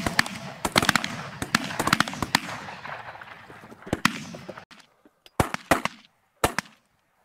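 Volley of shotgun fire from several waterfowl hunters shooting at once, many shots overlapping in quick succession with echo between them. This gives way to a handful of separate shots with near silence in between.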